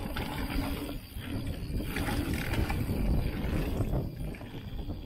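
Nukeproof Giga mountain bike rolling fast down a packed-dirt trail: tyre noise and the bike rattling with short clicks and knocks over bumps, under a steady low rumble of wind on the handlebar-mounted microphone.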